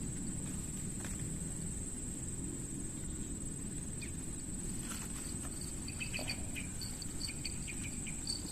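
Insects trilling in one steady high-pitched drone. From about five and a half seconds in, short high chirps repeat, over a low steady rumble of background noise.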